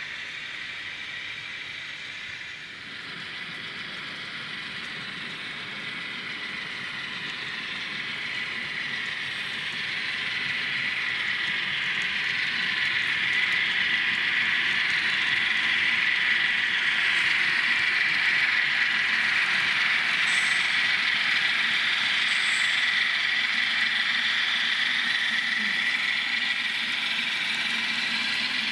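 N scale model container train running along the track: a steady whirring hiss of its small motor and wheels on the rails, growing louder from about ten seconds in as it draws near, then easing slightly near the end.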